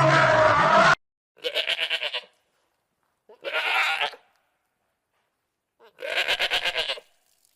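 A goat bleating three times, each bleat wavering and lasting about a second, with pauses between. Before the bleats, the tail of a louder, lower animal call cuts off abruptly about a second in.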